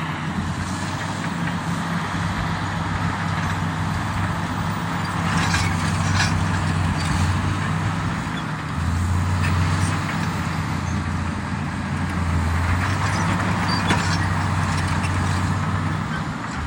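Komatsu D85EX crawler dozer's diesel engine running steadily, swelling in level a few times as it takes load, with a few sharp metallic knocks.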